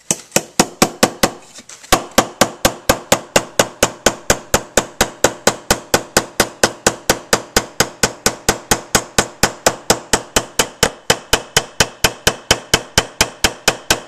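A flashlight used as a hammer, striking a finishing nail into wood in a fast, even run of sharp knocks, about four to five blows a second, with a short pause about one and a half seconds in.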